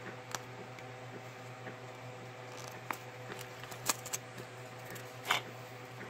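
Hands handling and unwrapping a small plastic-wrapped toy: scattered light clicks and a few brief crinkles of the plastic, over a steady low hum.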